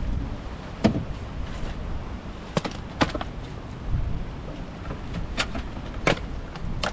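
Things being handled and knocked about in a car's boot: about six sharp knocks and clatters spread over a few seconds, over a low wind rumble on the microphone.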